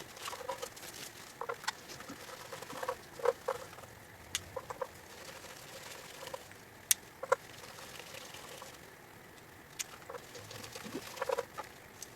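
T15 Torx screws being backed out of a truck ECU's metal case by hand: short, scattered squeaks from the turning screws, with a few sharp clicks of metal on metal.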